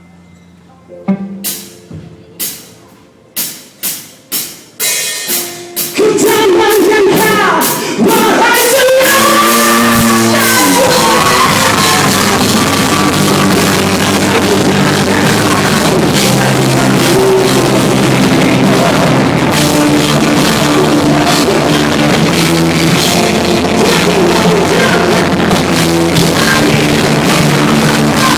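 Rock band playing live: a string of separate loud hits opens the song, then the full band with drums comes in about six seconds in and plays on steadily.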